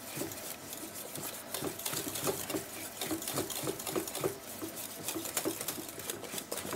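Wire whisk beating a thick semolina-and-milk paste in a stainless steel pot: quick, rhythmic strokes of the wires scraping and tapping against the pot as the paste is cooked to a choux-like thickness.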